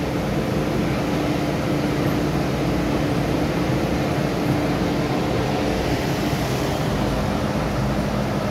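Steady hum and rush of an MTR M-Train's air-conditioning and onboard equipment while the train stands at a platform, heard from beside the open doors.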